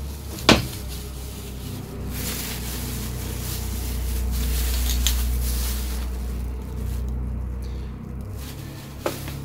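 Clear plastic bags crinkling and rustling as they are handled, with a sharp click about half a second in and another near the end.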